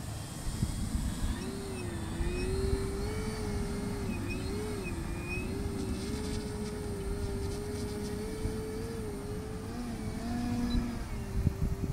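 57-inch 3DHS Extra 330SC radio-controlled aerobatic plane in flight, its electric motor and propeller giving a drone that rises and falls in pitch, over wind rumbling on the microphone.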